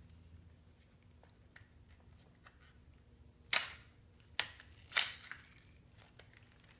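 Plastic toy packaging being handled and pulled open: a few faint ticks, then three sharp crackles about half a second apart around the middle.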